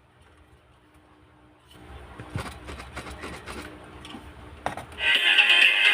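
Irregular clicks and knocks over a low hum for about three seconds, then background music starts abruptly about five seconds in and is the loudest sound.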